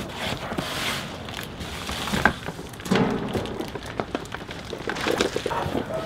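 Cardboard being handled: rustling and scraping of box flaps and packing inserts, with a few knocks.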